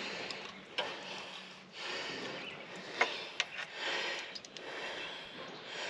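A man breathing heavily in slow, hissing breaths while straining at work on a truck engine, with a few sharp clicks of tools on metal.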